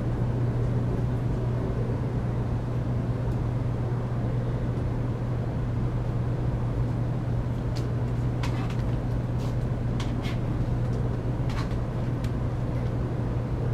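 Steady low hum inside a stationary Taiwan High Speed Rail passenger car, from its air conditioning and onboard equipment, with a few faint clicks in the second half.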